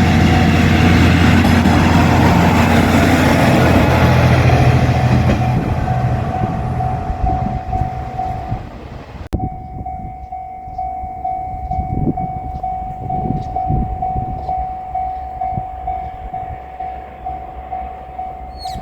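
JR Shikoku 1000-series diesel railcar running loudly past a level crossing, its engine fading away over the first several seconds. The crossing's bell keeps ringing with a steady repeated ding throughout, and is heard almost alone in the second half.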